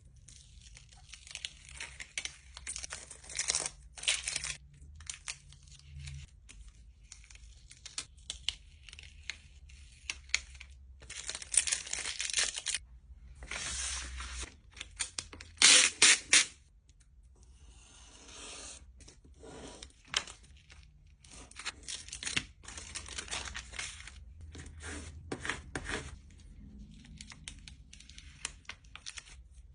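Adhesive craft vinyl and transfer tape being peeled and handled: irregular crackling, ripping peels and crinkling sheets, with the loudest long peel about halfway through.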